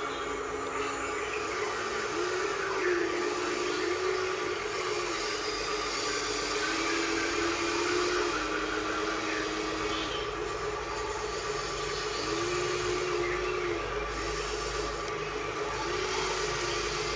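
RC hydraulic excavator's pump motor running with a steady whine, its pitch rising and falling back several times as the machine is worked, over a constant mechanical hiss.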